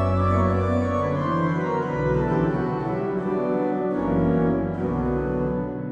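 Johannus Ecclesia 250 two-manual digital church organ playing slow sustained chords over a deep pedal bass, the chords changing every second or so and dying away near the end.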